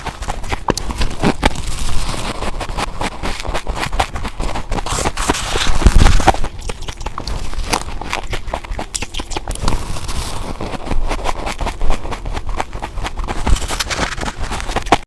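Humidifier ice being bitten and crunched close to the microphone: dense, irregular crackling crunches, with one louder bite about six seconds in.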